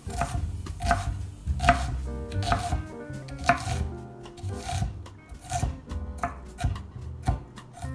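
A large kitchen knife chopping red onion on a wooden cutting board: about ten knocks of the blade through the onion onto the board, at an uneven pace.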